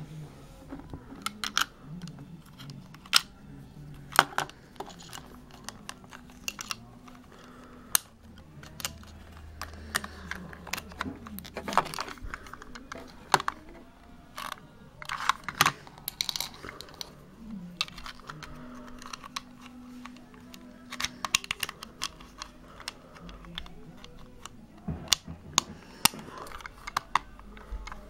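Irregular sharp plastic clicks and taps from a small plastic train-shaped alarm clock being handled and turned over in the fingers.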